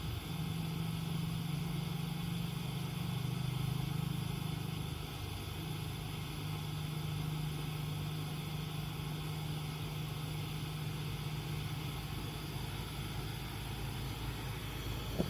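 Kerosene pressure lantern burning lit, its burner giving a steady hiss over a low hum.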